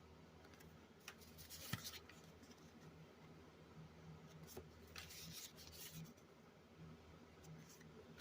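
Faint rustling and sliding of baseball cards as they are flipped through by hand, a few soft scrapes and clicks over a low steady hum.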